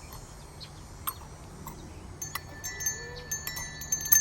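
Small jingle bells, each with a loose ball inside and mounted on a spring, being shaken. There are scattered jingles at first, and the ringing gets busier and louder from about two seconds in.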